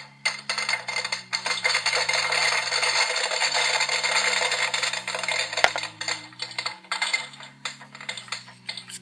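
Toy popcorn machine playing its electronic popping sound effect: a dense run of rapid crackles and pops that stops about seven seconds in. Soft background music plays underneath.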